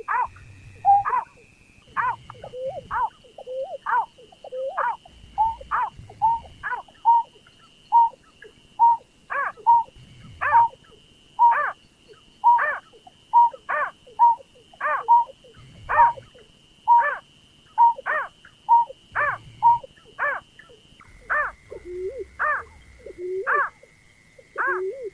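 Bird-lure recording of the rice-field bird known in Indonesia as berkik, pekung or burcet: short pitched calls repeated a little more than once a second. A steady thin high tone runs underneath and drops in pitch near the end.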